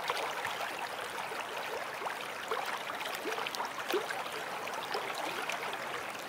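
Water trickling and gurgling: a steady wash of small splashes with little bubbling pips throughout.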